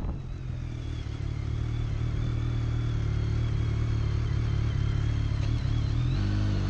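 Motorcycle engine running steadily while riding in traffic. It grows a little louder over the first couple of seconds, and its note shifts near the end.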